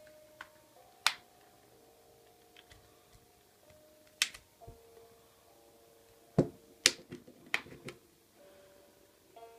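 Sharp clicks and snaps of a smartphone's plastic parts being pried and handled, as the SIM tray and the clipped-on back cover of an LG G2 come off, spaced irregularly. Soft background music with held notes plays beneath.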